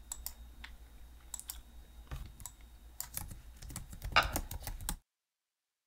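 Computer keyboard typing with mouse clicks: a few scattered single clicks, then quicker runs of keystrokes from about two seconds in as a name is typed.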